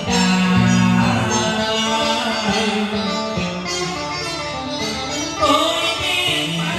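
Cải lương music: a plucked-string accompaniment over a steady bass line, with a singing voice gliding in near the end.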